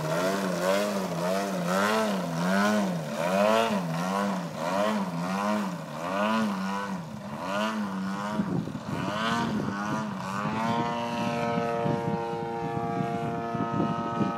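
Radio-controlled aerobatic model airplane's engine and propeller, its note wavering up and down rapidly and regularly for about eight seconds, then settling into a steady note for the last few seconds.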